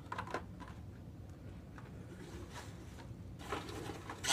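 Faint handling noises: a couple of light clicks just after the start, then rustling and knocking as hands dig through plastic packing in a cardboard box, loudest at the very end, over a low steady hum.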